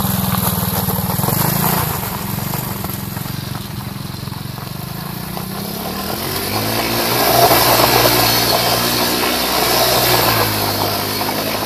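Small single-cylinder engine of a 110 cc quad bike running, its revs and loudness climbing about six seconds in, held high for a few seconds, then dropping again near the end.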